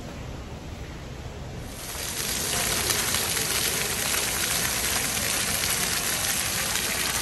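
Ground-level splash-pad fountain: water jets spraying up and splashing back onto the paving in a steady rushing hiss, which grows louder about two seconds in.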